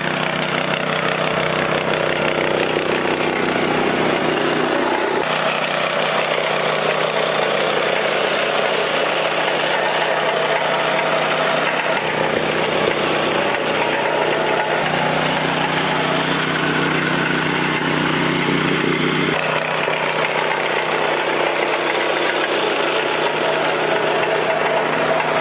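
Engine of working machinery running steadily, with a low humming drone under mechanical clatter; the sound shifts abruptly to a different engine note several times.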